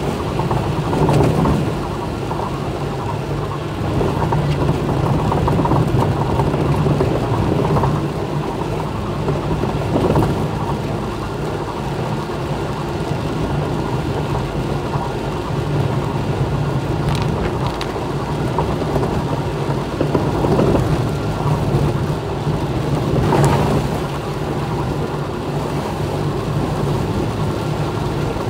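Heavy rain drumming on a car's roof and windshield, heard from inside the cabin over the steady low hum of the car moving on a wet road. A few short knocks stand out now and then.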